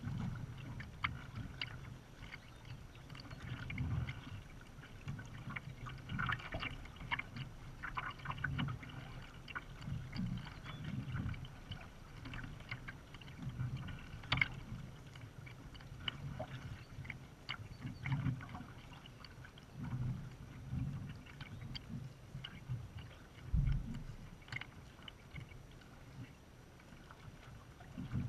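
Water lapping and sloshing against the bow of a kayak under way, with scattered small splashes and drips.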